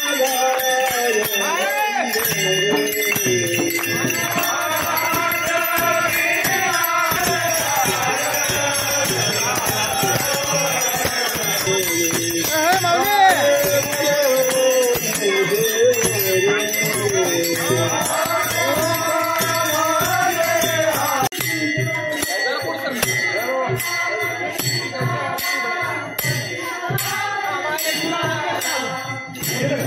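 Devotional group singing (bhajan) with a jingling, rattling percussion rhythm. About two-thirds of the way through the sound changes and the regular jingling beat comes to the fore.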